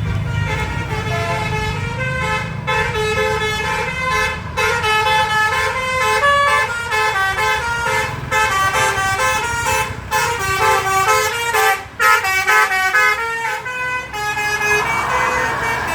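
Telolet basuri bus horn playing a quick melody of stepped notes over the low running of the bus engine. Near the end the tune stops and a rushing noise takes over.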